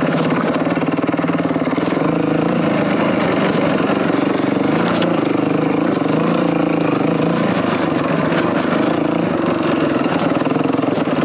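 Yamaha WR450F's single-cylinder four-stroke engine running as the dirt bike is ridden along a forest single track, its note rising and falling with the throttle.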